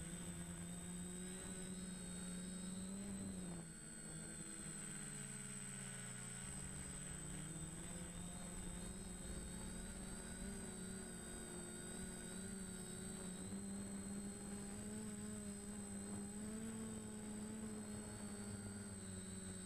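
DJI Flamewheel F450 quadcopter's electric motors and propellers running in flight, heard from the camera on board: a steady buzzing hum of several close pitches that sags a few seconds in as the throttle changes, then rises and holds.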